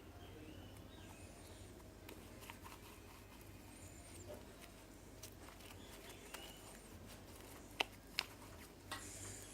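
Faint clicks and small taps of hands handling things at a table, with two sharper clicks close together about eight seconds in.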